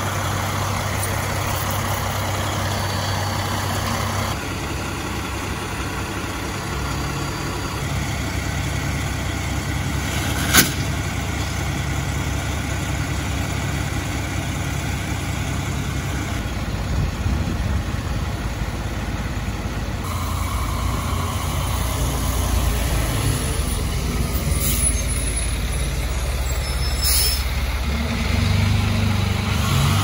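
Fire trucks' diesel engines idling steadily with a low drone. A single sharp click comes about a third of the way in, and the engine note grows louder near the end.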